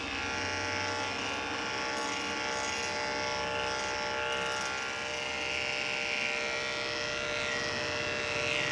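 Andis five-speed corded dog clipper, an Oster attachment comb over a #10 blade, running with a steady hum as it is passed over and over the dog's coat.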